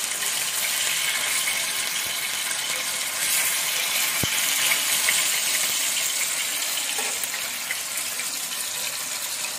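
Marinated, masala-coated fish pieces sizzling steadily as they shallow-fry in hot oil on an iron tawa, with one light click about four seconds in.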